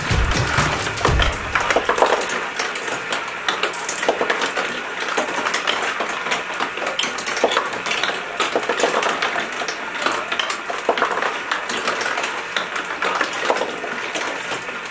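Glass marbles clattering and rolling through a marble run built of cardboard tubes and popsicle sticks: a dense, steady stream of small clicks and rattles.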